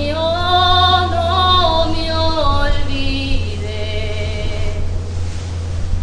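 Background song: a woman singing a slow melody in long held, gliding notes over a steady low hum.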